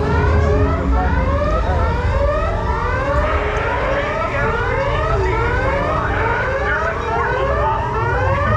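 Theme-park ride alarm siren sounding a fast, repeating rising whoop in several overlapping layers, over a steady low rumble. It is the staged emergency alarm that signals the ride's scripted malfunction.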